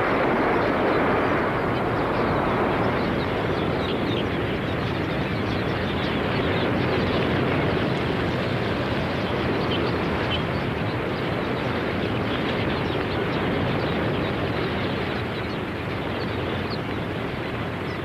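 A vast flock of red-billed quelea: a steady rushing roar of wings with dense, many-voiced chirping over it, easing slightly near the end.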